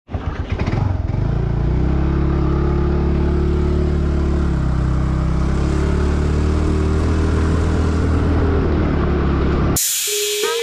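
Motor scooter's small single-cylinder engine running while under way, a steady hum that rises and falls a little in pitch. Near the end it cuts off suddenly and a steady higher tone takes over.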